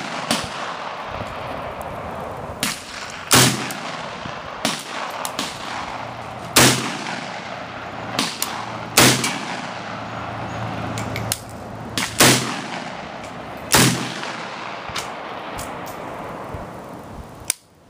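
Polish AK-47 underfolder rifle firing 7.62×39 mm rounds in aimed single shots: five loud shots two to three seconds apart, each with a long echoing tail. Fainter gunshots come in between.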